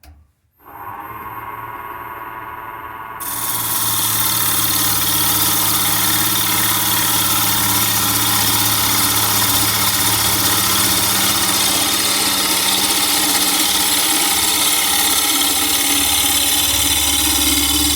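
Wood lathe motor starting up and running with a steady hum. About three seconds in, a bowl gouge starts cutting the spinning mahogany block, adding a loud, even shaving hiss that goes on to the end.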